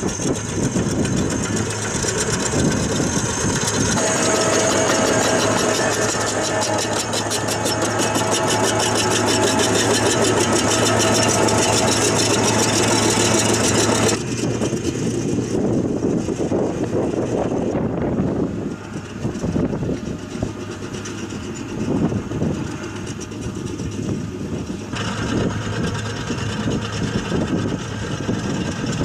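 Heavy diesel engine of a tracked drainage pipe-laying machine running steadily under load. About halfway through the sound drops abruptly and becomes quieter and rougher.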